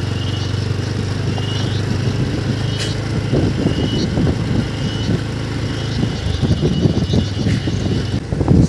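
A vehicle engine running steadily at low speed as a low hum. From about three seconds in, rough wind rumble on the microphone is heard over it.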